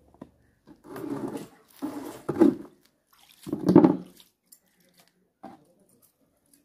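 Water splashing and sloshing in a washtub as clothes are rinsed by hand, in three short bursts about a second apart.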